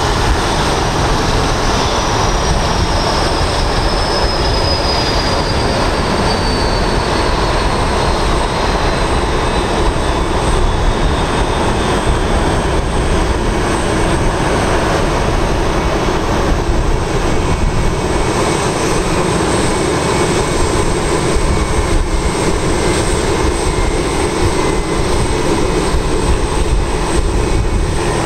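Boeing 747-8F's GEnx turbofan engines running at low power as the freighter moves slowly past on the ground: a steady jet roar. A high whine in it falls slowly in pitch over the first dozen seconds.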